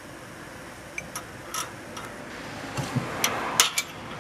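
Metal hand tools clinking as they are handled: irregular light clicks and taps that come closer together toward the end, with one dull knock near the middle.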